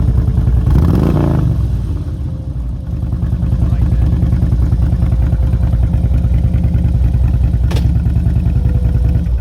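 Motorcycle engine running close by, loud and steady, with a quick rise and fall in revs about a second in and a short drop in level around two to three seconds in. A single sharp click near the end.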